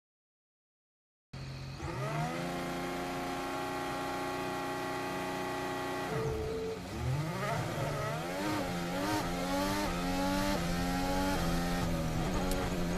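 Honda V6 turbo-hybrid Formula 1 engine held at high revs on the grid for a standing start. About six seconds in it launches, and the pitch then climbs again and again with quick upshifts as the car accelerates.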